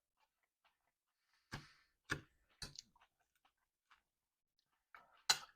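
Eating sounds close to the microphone: three sharp clicks about half a second apart, then a louder one near the end.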